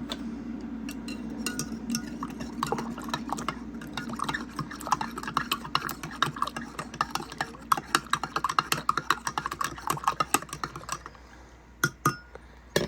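A spoon stirring coffee in a mug, clinking quickly and repeatedly against the sides for about ten seconds before stopping. A low steady hum sits under the first half.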